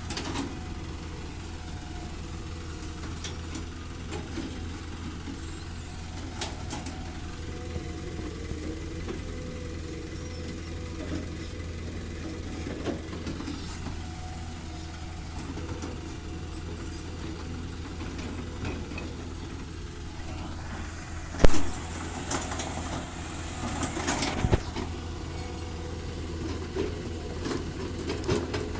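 Cat hydraulic excavator's diesel engine running with a steady low hum while its bucket works a rock pile, with scattered knocks and clatters of rock. The sharpest knock comes about three-quarters of the way in, followed by a short spell of clattering.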